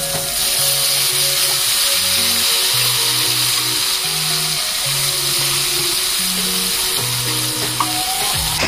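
Background music of held bass and melody notes over the steady sizzle of guinea fowl pieces frying in hot sunflower oil.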